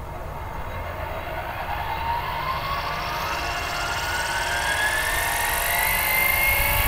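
Brushless electric motor of a Fly Wing Bell 206 V3 RC helicopter spooling up on the pad, a whine rising steadily in pitch and growing louder as the rotor comes up to speed before lift-off.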